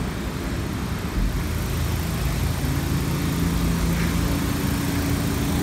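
Vehicle engine running steadily under city street noise, a low hum that settles into a steady drone about two seconds in.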